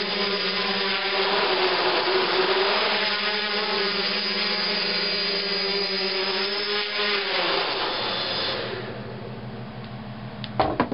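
AeroQuad V2 quadcopter's four brushless motors and propellers buzzing in flight, the pitch wavering up and down as it holds its position. About three-quarters through, the buzz drops in pitch and level as the motors wind down, and two sharp knocks come near the end.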